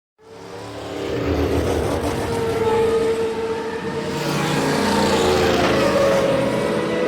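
A vehicle motor running with a steady whine. It fades in over about the first second and then holds level.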